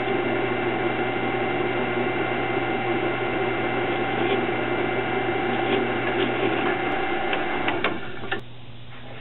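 Drill press running with a steady motor hum and whine while a small twist bit drills into a thin metal strip. A couple of clicks come just before the sound drops away suddenly about eight seconds in.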